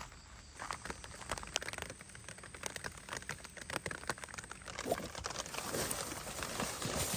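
Rain pattering in dense, irregular light ticks, with rustling that grows louder near the end.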